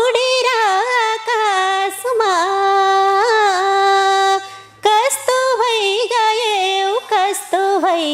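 A woman singing a Nepali folk song unaccompanied, in long held notes with ornamented turns and slides. She breaks for a breath about four and a half seconds in, then carries on.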